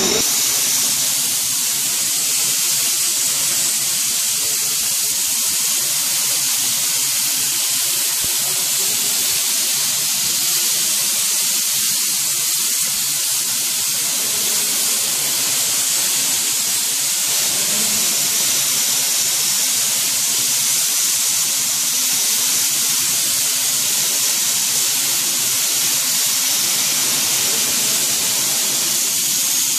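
Plaster spray gun fed by a Wagner PC 830 screw-pump plastering machine, spraying plaster onto a concrete ceiling with compressed air: a steady, unbroken hiss.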